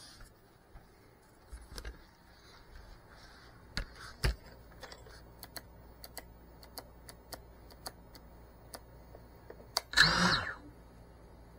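Light clicks and taps of a crashed FPV drone being handled, with a run of evenly spaced ticks partway through. About ten seconds in comes one short, loud squeak that rises and falls in pitch.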